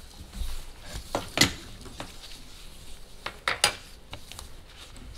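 Scattered clicks and light knocks of objects being handled on desks, the sharpest about a second and a half in and again about three and a half seconds in.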